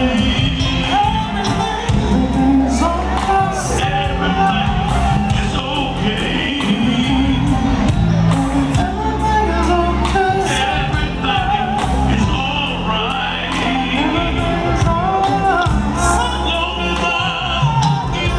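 Male soul vocal group singing an R&B song live with a backing band of keyboards, bass and drums, heard from the audience.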